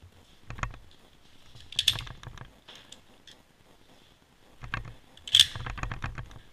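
Straight-pull bolt of a K31 rifle being worked by hand between shots: sharp metallic clicks and clacks as the bolt is drawn back and the spent case is ejected, about two seconds in. The loudest clack comes about five and a half seconds in, as the bolt is run forward again.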